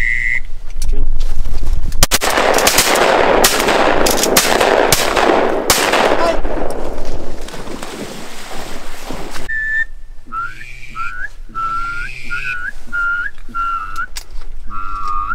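A rapid volley of shotgun fire from several hunters, many shots packed into about five seconds, starting about two seconds in. Near the end comes a run of short, evenly spaced quacks, about two a second.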